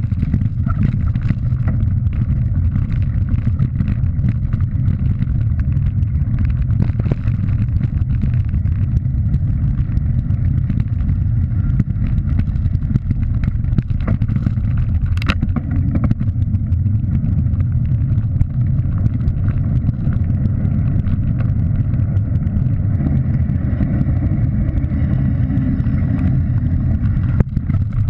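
Steady low rumble of wind buffeting a ride-mounted camera's microphone while tyres roll over a gravel track, with scattered small clicks and rattles from the bike and one sharp click about fifteen seconds in.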